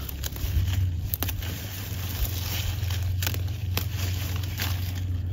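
Secateurs snipping strawberry leaf stalks and runners: several sharp clicks spread through, with rustling of the foliage, over a steady low hum.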